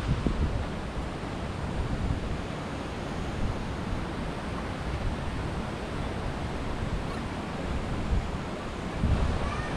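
Wind gusting on an action camera's microphone over a steady rushing outdoor hiss.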